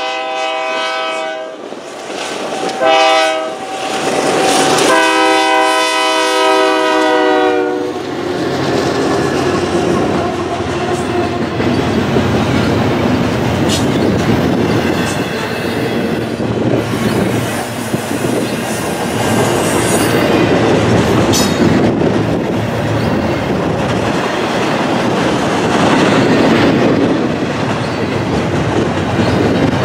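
Diesel locomotives of a Union Pacific double-stack intermodal train sounding a multi-note air horn. A blast already under way ends about a second and a half in, a short blast follows, then a longer one runs to about eight seconds in. After that the container cars roll past with a steady noise of wheels on the rails.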